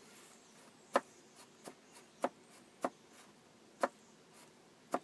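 Sharp clicks from a homemade cardboard rifle's mechanism as a hand works it: five loud clicks, roughly a second apart, with a few fainter ones between.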